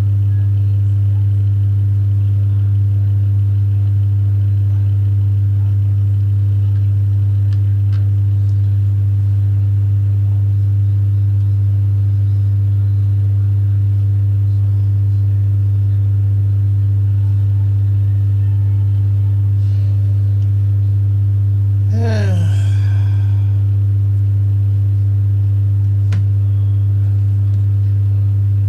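A loud, steady low hum with fainter steady overtones. A short sound sliding down in pitch comes about two-thirds of the way in, and a single click follows a few seconds later.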